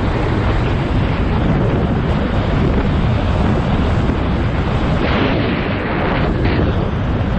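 Wind buffeting the microphone of a camera on an electric scooter in motion: a loud, steady low rumble, with a brighter hiss for about a second and a half around five seconds in.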